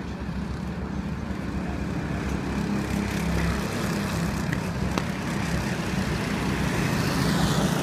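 A pack of go-kart engines running together in a line, a steady low drone that grows slowly louder toward the end.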